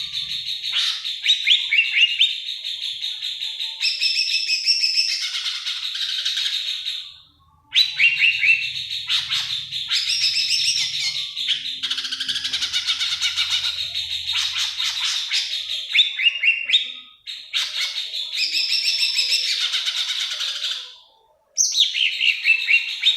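Songbird singing long, rapid, varied phrases of chirps and whistles, stopping briefly three times.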